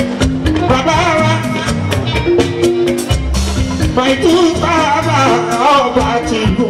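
Live Fuji music: a male lead singer with a band of electric guitars, bass guitar, drum kit and hand drums. The voice sings two phrases with a break of about two seconds between them, over a steady percussion beat and bass line.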